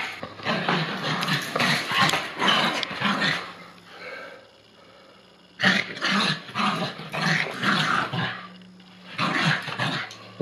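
Two Bichon Frise dogs play-fighting, barking and growling in bursts, with a short lull about four seconds in.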